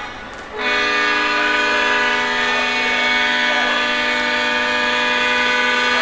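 Model diesel locomotive's onboard sound system blowing a long, steady diesel air horn blast. The horn starts about half a second in and is held without a break.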